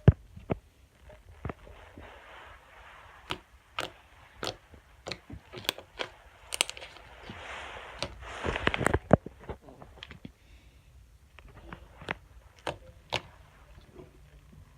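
Slime being squished and worked by hand, giving irregular sharp pops and clicks as trapped air bubbles burst. A few soft squelching stretches come in between, the longest a little over halfway through.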